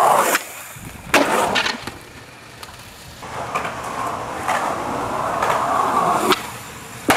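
Skateboard wheels rolling over concrete, growing louder over a few seconds, with sharp clacks of the board against the ground at the start, about a second in, and again near the end.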